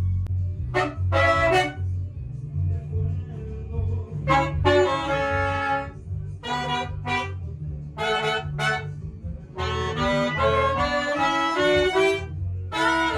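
Band horn section of trumpets, saxophone and trombone playing short melodic phrases with brief gaps between them, over a steady pulsing bass line.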